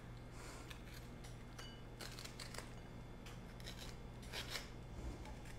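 Thin-edged spoon scraping the seeds and stringy pulp out of a halved delicata squash: faint, irregular scratchy strokes, a little louder about four and a half seconds in.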